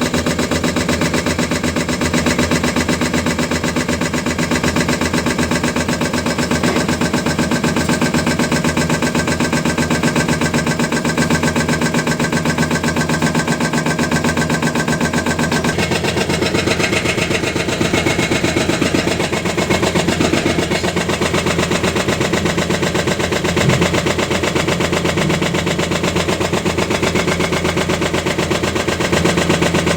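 Hyundai excavator's diesel engine running steadily with a rapid clattering pulse, its note changing about halfway through.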